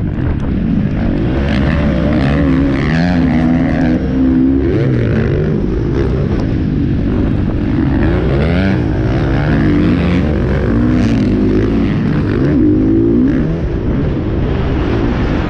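Motocross dirt bike engine revving hard and easing off over and over, its pitch rising and falling as the rider works the throttle and gears, heard up close from the rider's helmet.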